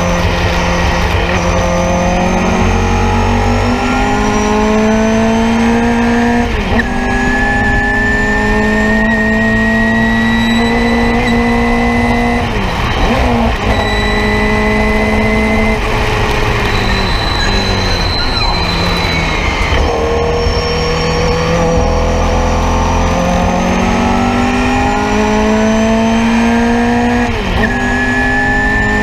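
Nissan Sentra race car's engine heard from inside the cabin under hard driving. Its pitch climbs steadily as it revs and drops sharply at each of about five gear changes.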